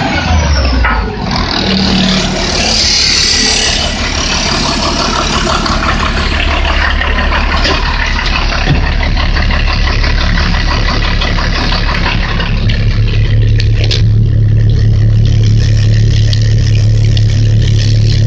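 International DT466E six-cylinder turbo diesel idling steadily. About two-thirds of the way through it turns to a deeper, smoother hum as it is heard from inside the truck's cab.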